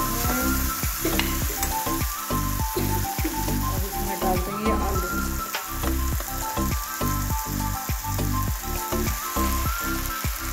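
Tomato-and-spice masala sizzling in hot oil in a metal pan while a ladle stirs it, with roasted potatoes tipped in from a plate in the second half. Background music with a steady beat plays over it.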